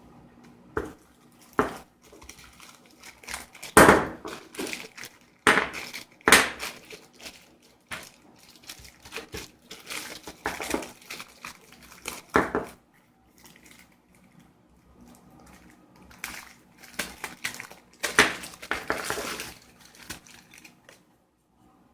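Plastic packaging bags crinkling and being torn open as wheel center caps are unwrapped, in irregular bursts of rustling with sharp clicks. The loudest bursts come about four and six seconds in, with a quieter lull in the middle-later part.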